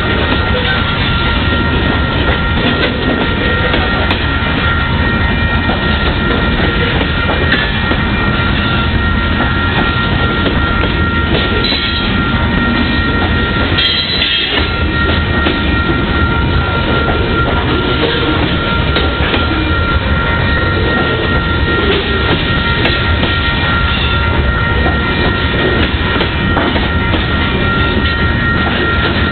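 Covered hopper cars of a grain train rolling past close by, steel wheels clattering over the rail joints in a steady loud rumble. A steady high ringing tone runs over it, typical of the grade-crossing bell sounding while the signals flash.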